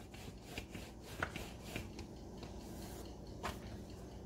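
Wooden rolling pin rolling out a round of dough on a wooden board: faint rubbing with a few light knocks.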